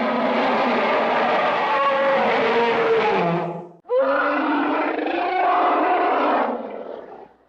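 Two anime sound effects played back to back, each about three and a half seconds of dense rushing noise with a few gliding tones, separated by a brief silence.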